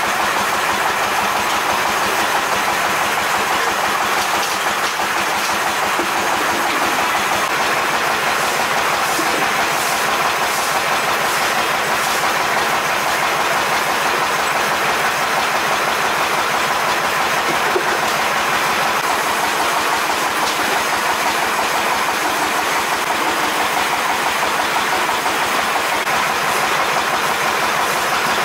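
Deep-frying oil sizzling in a wok of Cambodian donuts over a gas burner: a steady, even crackling hiss that does not let up.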